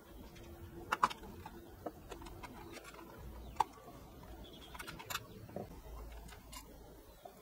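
Scattered faint clicks and taps from handling the white plastic case of a Retekess TR606 radio cassette player, two sharper clicks standing out, about a second in and again past three seconds, then a screwdriver working a small case screw near the end.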